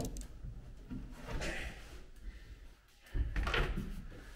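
Knocks and bumps from a person moving around inside a fiberglass boat's cabin, starting about three seconds in after a quiet start.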